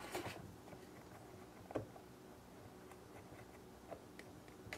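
Faint handling noise: a few soft, scattered clicks and taps as fingers press gummy jelly into a silicone popsicle mould.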